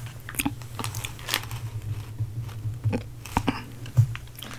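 Scattered soft clicks and crackles of close-miked mukbang eating sounds, from the paper-wrapped burger being handled and from chewing, over a steady low hum. The sharpest click comes about four seconds in.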